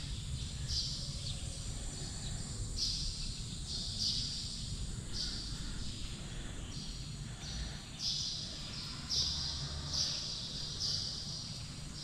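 Repeated high chirping calls, short bursts coming roughly once a second, over a low rumble.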